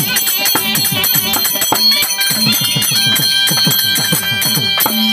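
Therukoothu ensemble music: a drum beating steadily, its bass strokes sliding down in pitch, under a held wind-instrument melody and drone, with the jingle of a dancer's bell anklets. The music stops abruptly right at the end.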